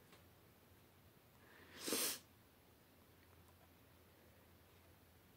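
A single short, sharp breath noise from a person close to the microphone about two seconds in; otherwise faint room tone.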